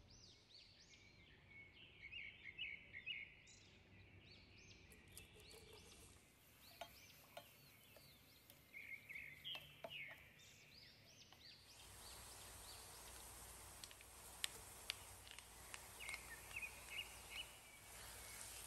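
Faint bird chirps: short high calls in little clusters, coming and going. About twelve seconds in, a soft steady hiss joins them, with a few sharp clicks.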